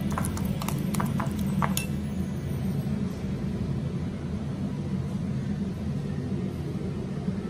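Metal spoon clinking against a glass bowl while mashing avocado: several light clinks in the first two seconds. Under it a steady low hum, which carries on alone after the clinks stop.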